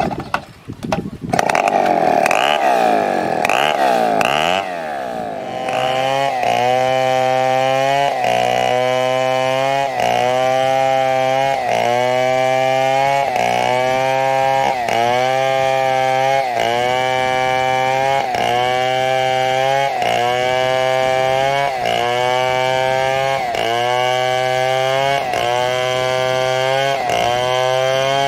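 Two-stroke chainsaw cutting a fallen coconut palm trunk into lumber. It revs up and down for the first few seconds. It then settles into a steady cut, its pitch dipping and recovering about once a second as the chain bites into the wood.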